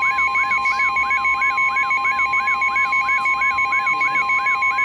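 NOAA Weather Radio 1050 Hz warning alarm tone, a steady high tone, sounding under electronic alert alarms: a chirp that rises and falls about three times a second and a fast pulsing beep. The tone marks a warning that is about to be broadcast.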